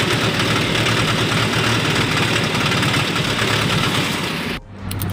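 Tractor engine running while the tractor is driven on the road, with a low pulsing beat under loud wind and road noise. Near the end the sound drops out briefly and gives way to a steadier, lower engine hum.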